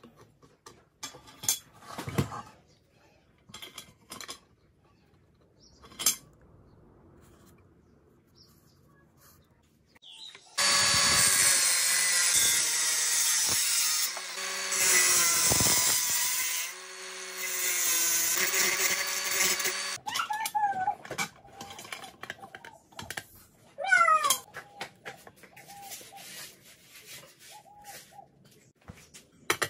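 An angle grinder with a thin cut-off disc runs loud and steady for about ten seconds in the middle, cutting through a galvanized steel strip held in a vise. Before and after it come scattered small clicks, taps and short squeaks of metal parts being handled and marked.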